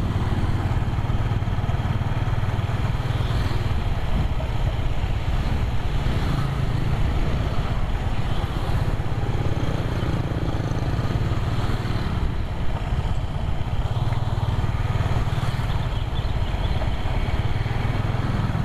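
Motorcycle riding along at a steady speed: the engine running evenly under a steady rush of wind and road noise.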